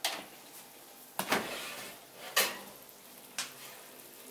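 An oven door is opened and the oven rack is pulled out with a hot glass baking dish on it: four sharp clatters of metal rack and glass, the loudest about two and a half seconds in.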